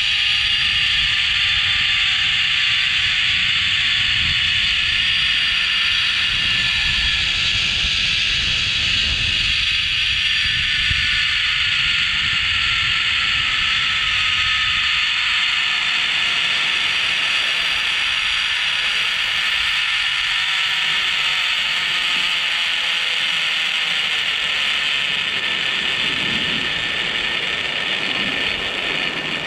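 Zipline trolley pulley rolling along the steel cable, a steady high whirring whose tones slowly fall in pitch. Wind rumbles on the microphone and fades about two-thirds of the way through.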